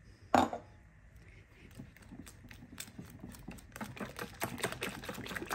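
Wire whisk beating eggs, sugar and milk in a ceramic bowl: a fast run of clicks and scrapes as the metal tines strike the bowl, getting quicker and louder over the last couple of seconds. A single sharp knock comes just after the start.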